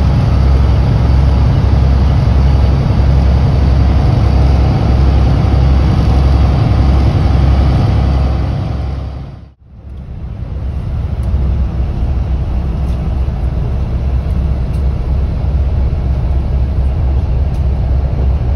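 A motorboat under way: its engine running under a steady, loud rumble of wind and rushing water. About halfway through, the sound fades to almost nothing and then builds back up.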